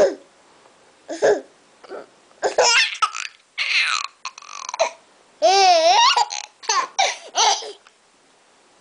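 A woman hiccupping a few times, then a baby laughing in a run of high, wavering bursts at her hiccups.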